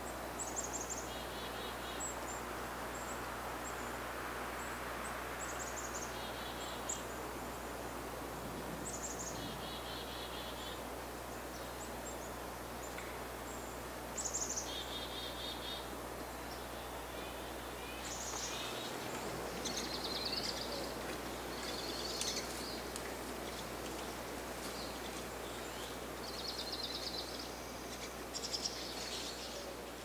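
A steady background hiss with small birds calling again and again. Most calls are a short high chirp, often followed by a brief run of buzzy notes.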